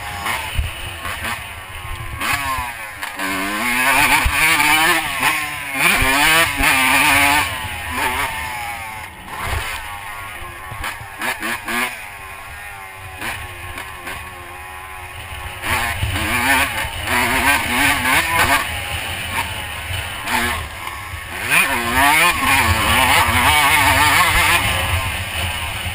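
Honda CR125 two-stroke dirt bike engine being ridden hard, its pitch rising and falling over and over as the throttle is opened and shut through the gears. Two loud spells of hard revving come with a quieter, lower-revving stretch between them.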